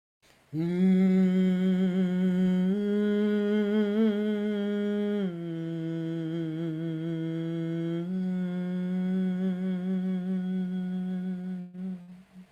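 A woman's voice toning one long, slow, held note in the lower part of her range, stepping up in pitch a little about a quarter of the way through, back down near the middle, and up again, then fading out near the end. A meditative sound offering, humming-like and wordless.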